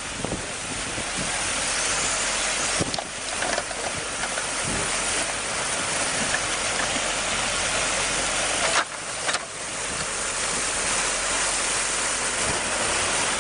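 Steady rushing noise with no clear pitch, broken briefly about three seconds in and again about nine seconds in.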